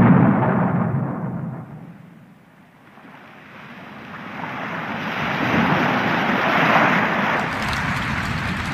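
Casio CT-X keyboard sound-effect tones. A noisy blast dies away over about two seconds, then a rushing, rumbling noise swells up and holds, ending with a fine crackle.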